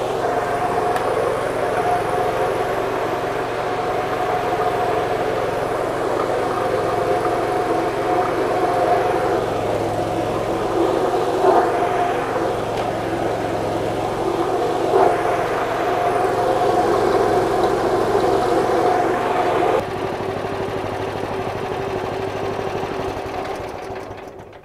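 Electric stone-disc onion-and-garlic grinding machine running steadily with a motor hum as it grinds peeled garlic and shallots, with a couple of sharp knocks in the middle. The sound drops a little after about twenty seconds and dies away near the end.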